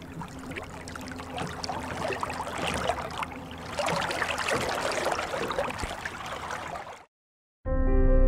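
Underwater bubbling: a dense fizz of small bubbles and water that gets louder about four seconds in. It cuts off abruptly about seven seconds in, and after a brief silence soft music with long held chords begins near the end.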